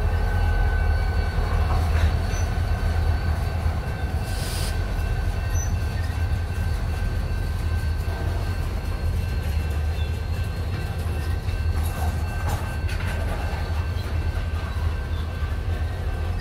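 Freight train passing close by. Its diesel locomotives run past in the first few seconds with a heavy low rumble, then covered hopper cars roll by with steady wheel and rail noise. A thin, steady high-pitched squeal and a few scattered clicks sit over the rolling noise.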